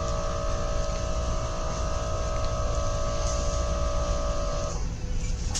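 Steady electrical or mechanical hum with several held tones over a background hiss; the tones cut off suddenly near the end.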